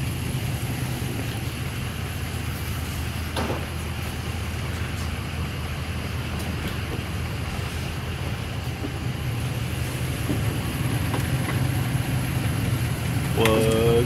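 Pickup truck engine idling, a steady low hum, with one faint click about three and a half seconds in.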